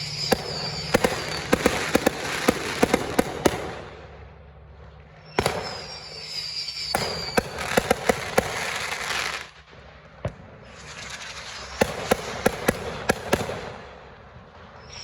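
Consumer fireworks going off in three rounds of dense crackling with many sharp bangs. Each round opens with a short high whistle, and there are brief lulls between them.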